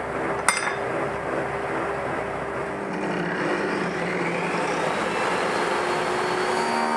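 Electric woodworking power tool running as it cuts a piece of wood, with a sharp click about half a second in; its tone shifts about halfway through.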